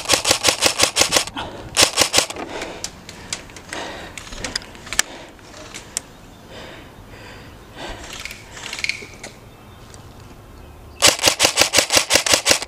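Airsoft rifle firing rapid strings of shots, about ten a second: a burst of about a second at the start, a short one around two seconds in, and another of about a second and a half near the end. Fainter scattered pops and clicks come in between.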